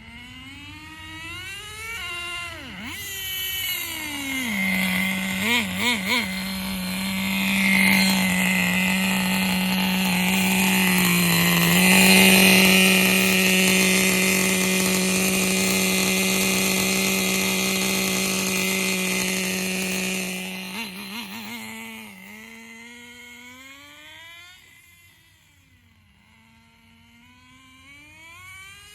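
Small nitro (glow-fuel) engine of an RC car revving up and down as the car accelerates. It then holds a steady, high, buzzing pitch for about fifteen seconds with one brief dip partway through. Near the end it eases off and fades as the car moves away, then comes back up.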